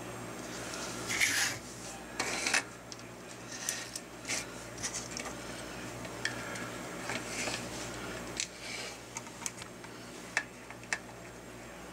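Fingers handling thin wires and a small plastic battery box on a cutting mat: brief scratches and rubs, a couple of louder scrapes in the first three seconds, then scattered small clicks, over a steady low hum.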